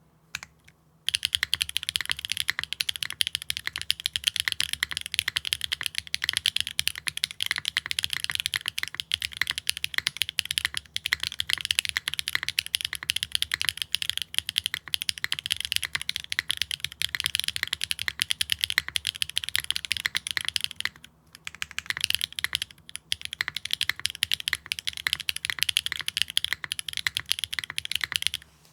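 Continuous fast typing on a mechanical keyboard with stock HMX Yogurt V2 linear switches, a carbon fiber plate, no foam and GMK keycaps. The keystrokes begin about a second in and break off briefly about 21 seconds in. The switches sit tight in the plate, and the typing is clean without ticking.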